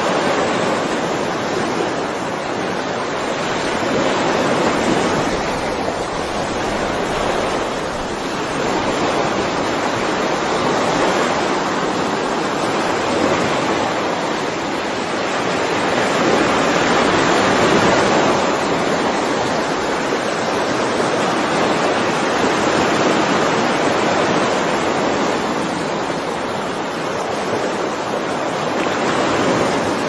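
Ocean surf: waves breaking and washing up a shore as a continuous rushing hiss that swells and eases slowly every few seconds, loudest a little past halfway.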